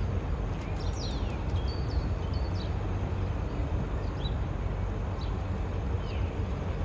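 Steady low rumble of city ambience, with short chirps of small birds scattered through it.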